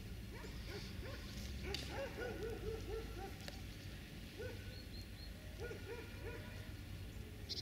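Puppy making short, pitched whining yelps in quick runs: about five in a row, then a single one, then three more.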